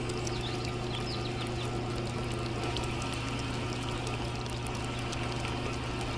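Small electric motor of a miniature homemade concrete mixer running steadily, spinning the empty drum: a steady low hum under an even whirring noise.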